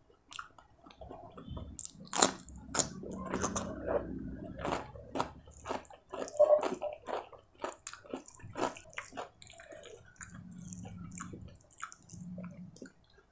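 Close-miked wet chewing of rice and curry eaten by hand, with many sharp mouth clicks and lip smacks and soft squishing of the food.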